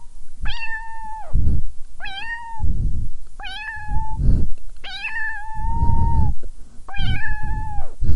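Tabby cat meowing over and over: five long meows about every one and a half seconds, each rising at the start and then holding steady, the fourth the longest. A low rumbling noise follows each meow.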